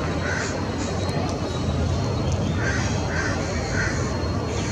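Short, harsh bird calls: one call just after the start, then a run of three about two seconds later, spaced about half a second apart. A steady low rumble runs beneath them.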